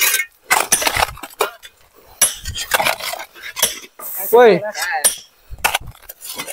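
Hand hoes striking and scraping stony earth and rock while digging, an irregular series of sharp metal chinks and thuds. A short cry of "ui" about four seconds in.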